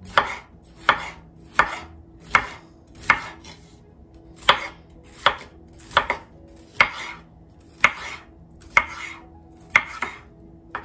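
Chef's knife thinly slicing a red bell pepper on a cutting board: a steady series of crisp knife strikes on the board, a little more than one a second.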